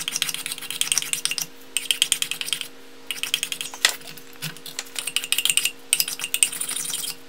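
Spokeshave shaving a hickory axe handle clamped in a vise, in repeated crisp cutting strokes with short pauses between them. It is trimming the handle where a test fit showed it too tight in the axe eye.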